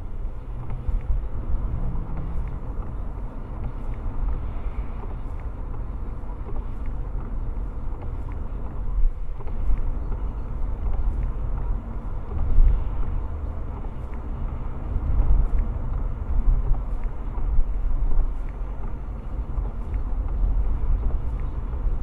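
Steady driving noise heard inside a car's cabin: a low rumble of tyres on a wet road, with engine and wind noise.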